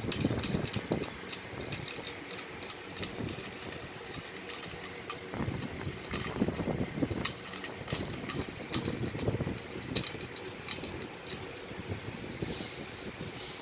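A Pomeranian puppy licking the steel spout of a hanging water bottle: a quick, uneven run of small clicks and ticks from the metal nozzle.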